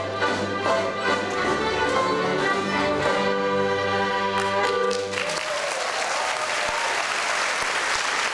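A fiddle orchestra with accordion and harp plays the closing bars of a reel and stops on a held final chord about five seconds in. Audience applause follows.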